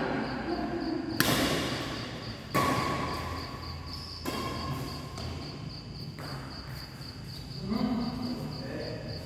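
Badminton rackets smacking a shuttlecock in a rally: three sharp hits roughly a second and a half apart, each echoing in a large sports hall.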